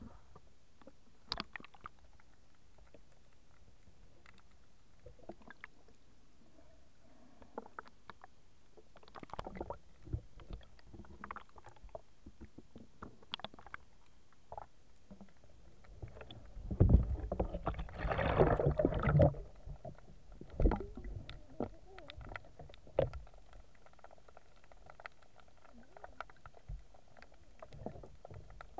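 Underwater sound through an action camera's waterproof case, muffled: faint scattered clicks and knocks, with a louder rush of churning water from a swimmer's movement about 17 seconds in, lasting a couple of seconds.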